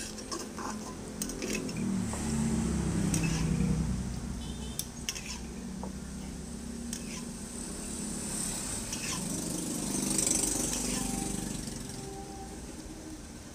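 Metal spatula scraping inside a wok and clinking against a ceramic bowl as cooked squid in sauce is scooped out, with scattered sharp knocks.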